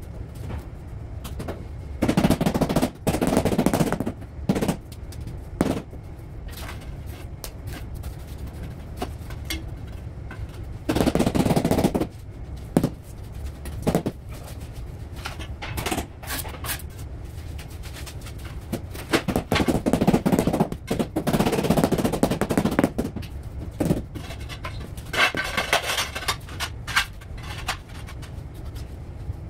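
Tile-laying work on a mortar floor bed: three bouts of rapid knocking and scraping, a second or two each and the last one longer, with lighter scattered clicks and scrapes between them.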